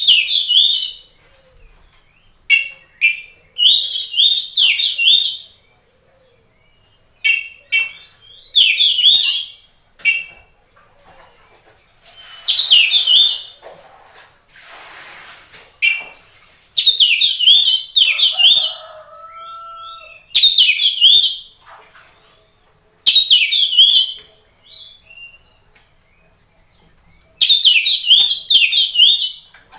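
Oriental magpie-robin (kacer) in full song: loud bursts of rapid, varied whistled and chattering phrases, about ten of them, each a second or two long with short pauses between.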